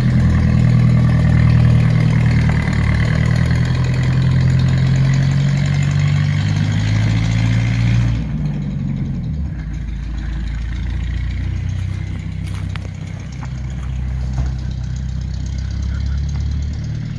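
MG MGB's four-cylinder engine running steadily; about eight seconds in the sound drops, becoming quieter and duller.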